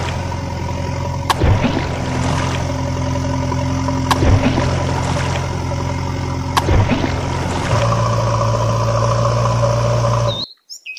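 Heavy-machine engine idling, a steady low hum with a sharp click every two to three seconds. It cuts off suddenly near the end, and a bird chirps.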